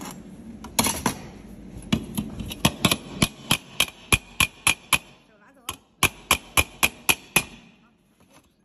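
Hammer beating on an M5 stud freshly welded onto galvanized steel tube: about twenty sharp metal-on-metal blows, mostly about four a second, with a short pause midway, stopping near the end. This is a hammer test of the capacitor-discharge stud weld's strength.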